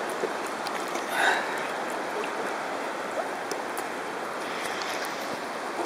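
Seawater sloshing and gurgling around a camera held at the water's surface, with small scattered clicks and a brief louder splash about a second in.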